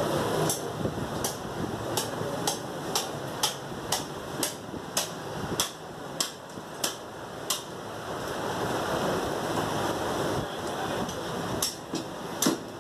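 Butcher's cleaver chopping through mutton ribs on a wooden chopping block: a run of sharp chops about two a second, then a pause of a few seconds before a few more chops near the end.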